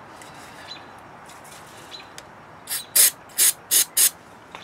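Aerosol can of starting fluid (ether) sprayed in five short spurts, the first one weaker, into the carburetor intake of a two-stroke backpack blower that won't start. This is a test of whether the engine will pop when given fuel directly.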